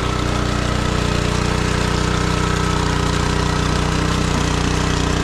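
Engine of a farm machine working a flooded paddy field, running steadily and loud.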